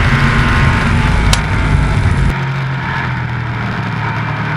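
SK Modified race car's V8 engine heard from the onboard camera, running hard at racing speed, then easing off and dropping in level about halfway through as the car goes into the turn.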